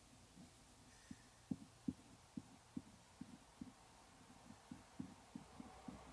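Faint soft taps, a few a second at uneven spacing, from a pencil sketching a circle in short, light strokes on paper laid on a table.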